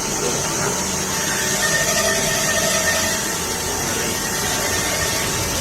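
Metal lathe running, a steady machining noise with a constant high whine, and a thin squealing tone for a second or two partway through.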